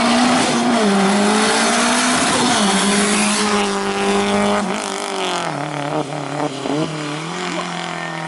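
Rally car's engine at high revs climbing past at racing speed, its pitch stepping down and back up several times as it changes gear.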